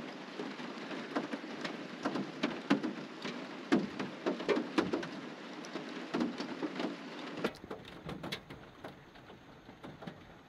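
Rain pattering on a minivan, an even hiss full of irregular drop taps. It grows quieter about seven and a half seconds in.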